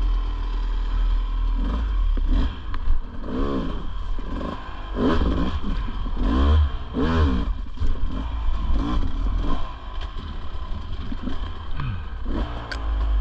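Dirt bike engine revving in a run of short throttle bursts, each one rising and falling in pitch, about one a second, under a steady low rumble. Short clatters and scrapes come in between.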